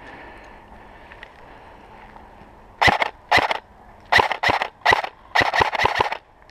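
Airsoft guns firing a rapid exchange of short bursts, about six of them crowded into the last three and a half seconds, each a fast string of sharp cracks.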